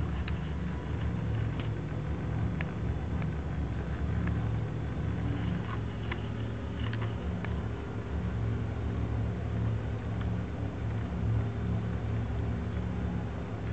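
Submerged aquarium filter pump in the water, humming steadily, with a few faint ticks in the first half.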